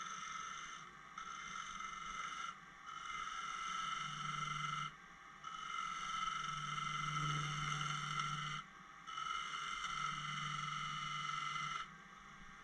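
Turning tool cutting the outside of a spinning segmented pear-wood vase on a wood lathe: a steady high-pitched whine in passes of one to three seconds, broken about five times by short pauses.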